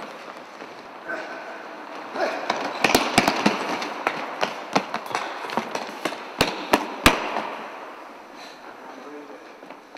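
Sneakers running, planting and stamping on a hardwood gym floor: a rapid scatter of sharp slaps and thuds that starts a couple of seconds in and dies away after about seven seconds.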